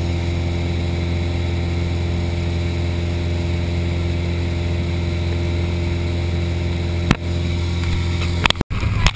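Small propeller plane's engine droning steadily, heard inside the cabin during the climb to jump altitude. A sharp click comes about seven seconds in, and the sound breaks off briefly near the end.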